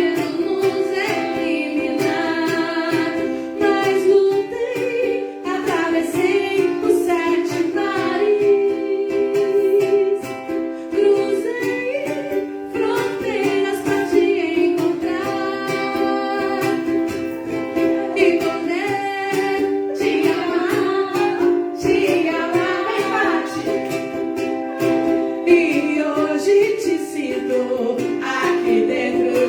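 Music: a plucked acoustic string instrument playing, with a sung melody over it.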